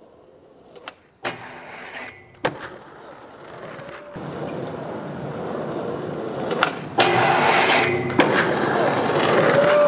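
Skateboard wheels rolling on concrete, building steadily louder, with sharp clacks of the board hitting the ground: two early on and a loud one about seven seconds in, after which the rolling stays loud.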